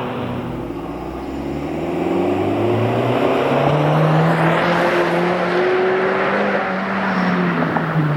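The 2022 Honda Civic Si's L15B7 1.5-litre turbocharged four-cylinder engine and exhaust, with the engine note climbing smoothly over the first few seconds as the car gathers speed. The note then holds steady and eases off slightly near the end, over a rushing noise.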